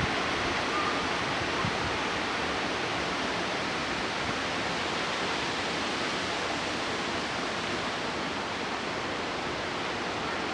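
Severe thunderstorm winds rushing steadily through trees, a dense, unbroken hiss with no gusts standing out.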